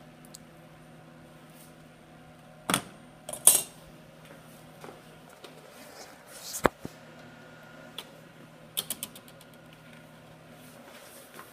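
Parts of a TV backlight module being handled during disassembly: scattered sharp knocks and clatters, the loudest about three and a half seconds in, and a quick run of small clicks about nine seconds in, over a steady low hum.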